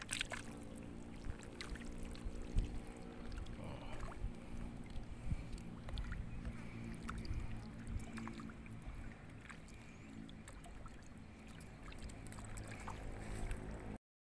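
A low, steady engine hum with scattered small clicks and taps over it. The sound drops out to silence for a moment near the end.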